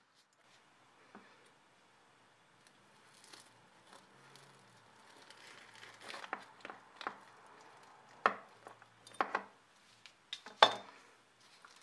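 A knife cutting through a crisp, flaky baked shaibiyat pastry (layered dough around a walnut filling) on a wooden board. Soft crackling builds, then several sharp crunches come about 8, 9 and 10.5 seconds in, the last the loudest.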